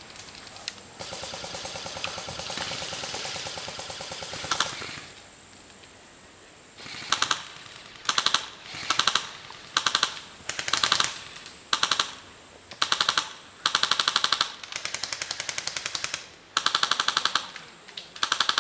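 Airsoft guns firing on full auto, each burst a fast rattle of shots. A longer, quieter stretch of fire comes first, then a dozen short, loud bursts follow each other about a second apart.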